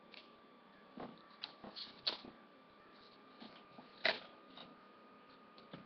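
Scattered light clicks and rustles of small objects being handled and set down, the loudest a sharp click about four seconds in, over a faint steady high-pitched tone.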